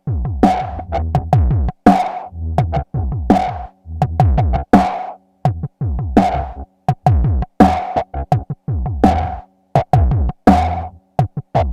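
Electronic drum pattern from an Endorphin.es Queen of Pentacles Eurorack module: rapid, stuttering hits, many with steeply falling pitch like synthesized kicks, chopped by sudden short gaps, over a recurring steady mid-pitched tone.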